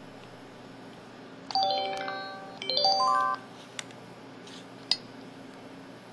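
Samsung SPH-E2000 mobile phone playing two short chime effect sounds through its speaker, each a quick run of notes stepping up in pitch, the second following soon after the first. Two brief clicks come a little later.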